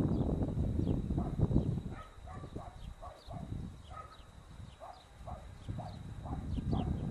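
Five-week-old Border Collie puppy yipping in a quick string of short, high yaps. A low rumbling noise on the microphone comes in the first two seconds.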